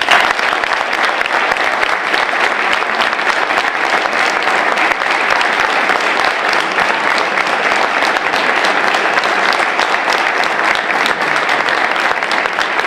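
An audience applauding: many hands clapping, starting all at once and keeping on steadily.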